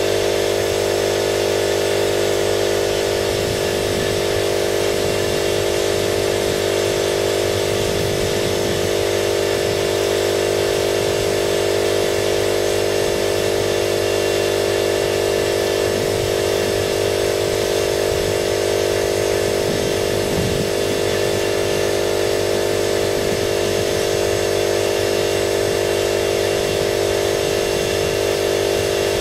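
Paint-spraying equipment's electric motor running steadily, a constant hum with hiss above it.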